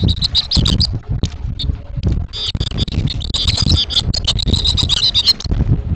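A flock of goldfinches chattering and twittering in a busy squabble, the calls thickening about two seconds in and thinning out near the end, over a loud, irregular low rumble.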